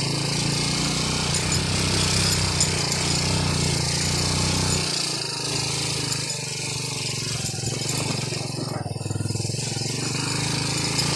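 Small motorcycle's engine running while riding a rough dirt trail, a steady pulsing drone. About five seconds in, its deepest part drops away and the engine note eases.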